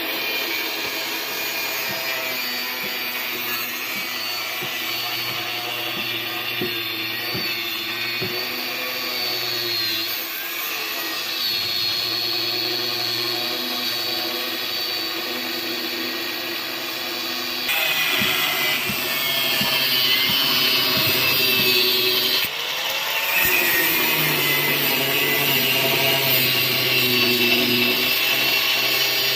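Machinery running steadily with a continuous whine and scattered knocks, the sound shifting abruptly twice in the second half.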